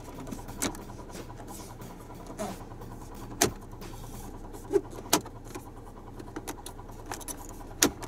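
Plastic clips of a Daihatsu Move's centre-console trim panel snapping into place as the panel is pressed back in by hand: three sharp snaps a couple of seconds apart, with lighter taps between, over a steady low hum.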